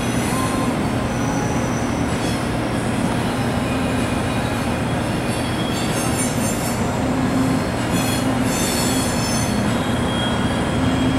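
CSX coal train's hopper cars rolling past in a steady rumble, with wheels squealing on and off in high thin tones several times.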